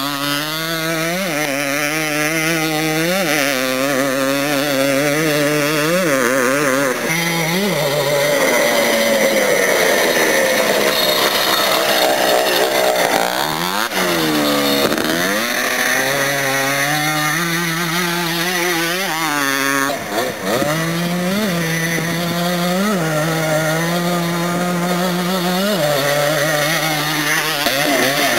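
Yamaha Blaster ATV's single-cylinder two-stroke engine being ridden hard on dirt, its pitch rising and falling with quick throttle blips every few seconds. About halfway through it swells up in pitch and drops back down.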